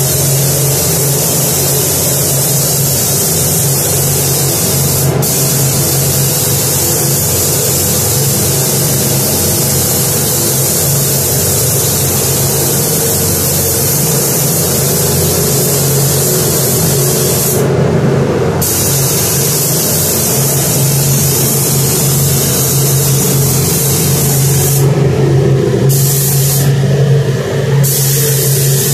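Gravity-feed paint spray gun hissing steadily as compressed air atomises paint, with the trigger released briefly once past the middle and twice near the end. A steady low hum runs underneath.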